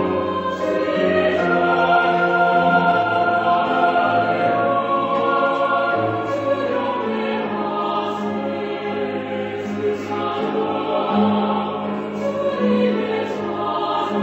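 Mixed choir singing a Korean worship anthem in harmony, in sustained chords.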